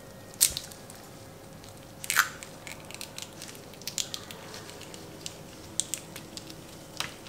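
Lychee rinds cracking and crackling as they are peeled by hand: a few sharp cracks, the loudest about half a second and two seconds in, with lighter clicks and crackles between.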